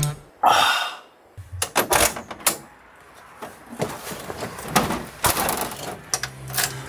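A short exhale just after a sip from a mug, then a run of clicks, knocks and small rattles as someone settles into the driver's seat of an old van and handles the controls.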